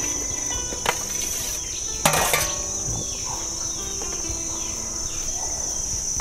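Cubes of cooked blood curd slid from a metal plate into a big aluminium pot of boiling broth, with a small clink about a second in and a louder clatter and splash about two seconds in. A steady high insect drone runs underneath.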